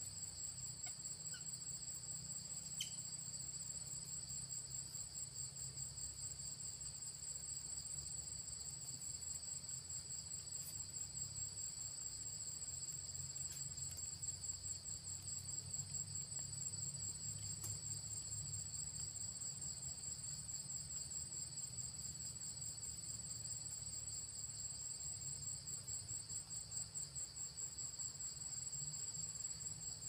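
Steady high-pitched insect chorus: a fast pulsing trill on two pitches, with a low hum underneath.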